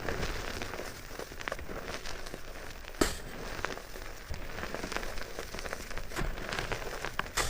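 A soft material being crushed close up for ASMR, giving a dense, steady crackle of small crunches, with a sharp snap about three seconds in and another near the end.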